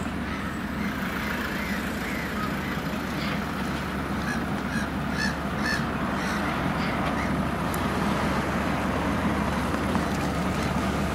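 Geese honking, a run of short calls about two to six seconds in, over a steady low rumble that slowly grows louder.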